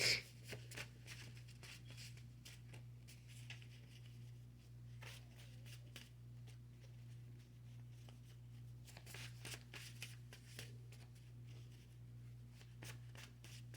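Tarot cards being shuffled and handled: soft flicks, slides and taps of card stock, with one sharp tap at the start and busier clusters near the middle, over a steady low electrical hum.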